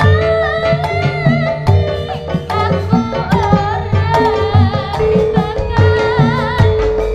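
Live Javanese jaranan accompaniment: hand-beaten kendang drums playing a brisk, uneven rhythm under a steady held tone and a wavering high melody line.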